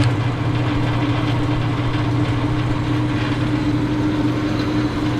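Wilton Tradesman 14-inch bandsaw with a 1 hp motor switching on and running with a steady hum, nice and smooth.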